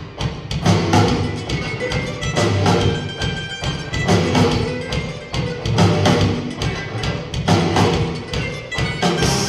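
Celtic punk band playing live, an instrumental passage with a steady drum beat under electric guitars and mandolin.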